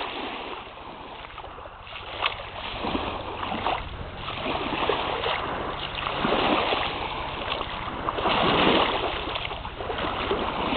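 Shallow water lapping and splashing, in swells that rise and fall, loudest near the end, with a few small sharp splashes.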